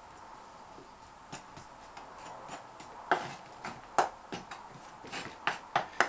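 A metal hand tool scraping and prying packed casting sand out of a wooden flask around a freshly poured aluminium casting. It makes a series of short scrapes and knocks, few at first, then louder and more frequent from about halfway, in a quick run near the end.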